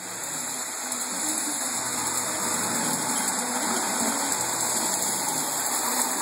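Three-rail O-gauge toy electric train running around its track: steady noise of its motor and wheels on the metal rails.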